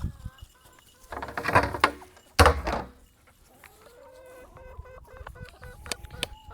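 Chickens clucking, with two louder bursts of noise in the first three seconds, then softer, wavering clucks.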